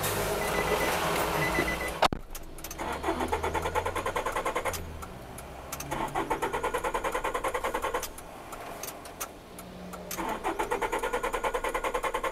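A stalled car's starter motor cranking the engine in three separate tries of about two seconds each, with a fast, even chugging. The engine does not catch.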